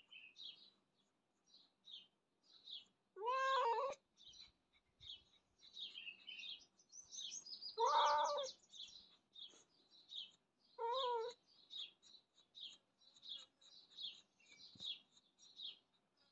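Domestic cat meowing three times: a long meow about three seconds in, another about eight seconds in, and a short one about eleven seconds in. Birds chirp constantly in the background.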